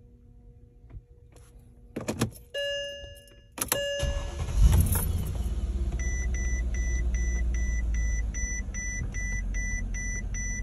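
A few short electronic chimes as the Mercedes S550's ignition is switched on. Then, about four seconds in, the engine starts and settles into a steady idle. From about six seconds a rapid warning beep repeats about three times a second.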